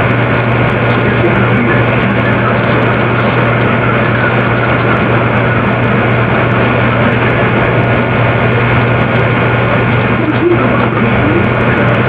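A loud, steady droning noise with a strong low hum running through it, unchanging throughout.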